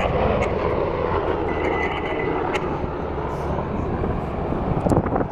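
Helicopter flying past, a steady heavy engine and rotor noise whose pitch sinks over the first few seconds as it goes by.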